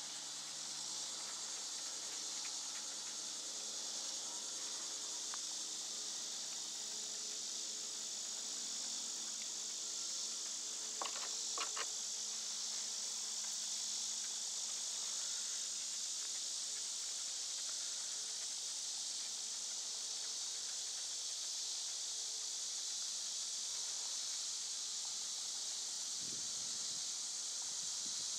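Steady, high-pitched chorus of insects, with a few sharp clicks about eleven seconds in.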